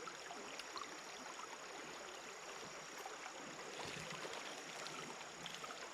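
Faint, steady rush of creek water flowing over rocks, with a few small ticks.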